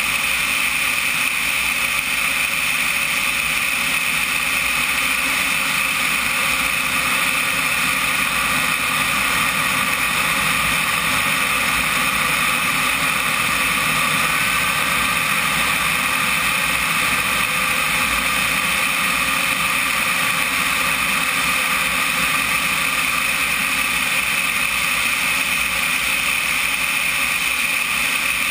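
Turbine engine of a CompARF Flash RC jet running steadily in flight, mixed with air rushing past a camera mounted under the fuselage. The steady sound holds at one level throughout.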